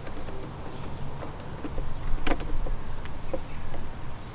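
Phillips screwdriver turning a screw into a motorcycle's plastic fairing panel: a few faint scattered clicks over a steady low background hum.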